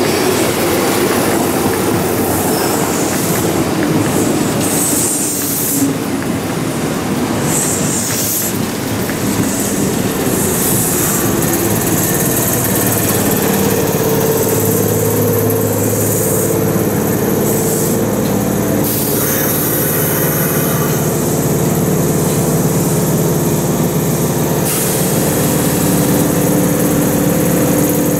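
Kintetsu electric express train running past into the station: a rumble of wheels on rail with clatter and a few brief high squeals in the first ten seconds. About halfway through a steady whine of several tones sets in over the rumble as the train runs along the platform.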